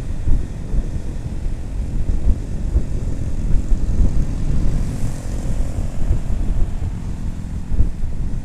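Wind buffeting the microphone of a moving motorcycle, a heavy low rumble, with the motorcycle engine's drone underneath; a steadier engine note comes through more clearly in the middle.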